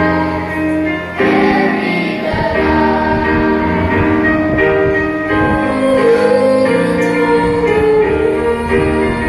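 Children's choir of boys and girls singing together into microphones, holding long notes with the melody moving beneath.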